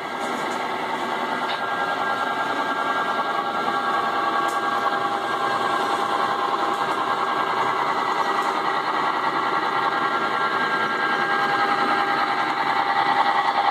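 Model diesel locomotive running with its dynamic brakes on as it eases a long freight train downhill: a steady mechanical whine and rattle of the model train rolling on the track, slowly growing louder as it approaches.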